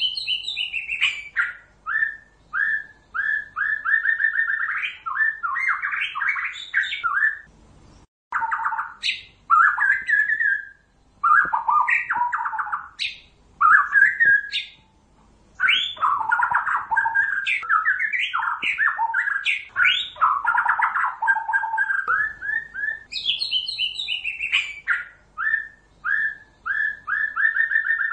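White-rumped shama of the Pasaman type singing a long, varied song: fast runs of short repeated notes, mixed with higher sweeping whistles, broken by a few brief pauses.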